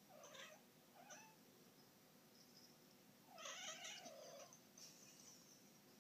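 Domestic tabby cat calling: two short, faint meows near the start, then a longer, rough, drawn-out yowl a little past the middle.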